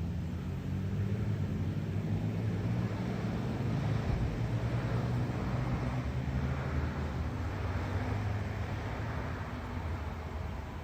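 A passing motor vehicle: a low engine hum that swells and then slowly fades.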